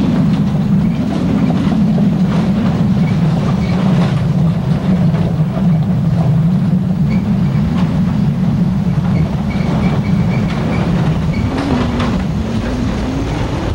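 Truck driving along a rough dirt and gravel road: a steady low engine and road rumble with rattling and jolting from the uneven surface. The rumble rises in pitch near the end.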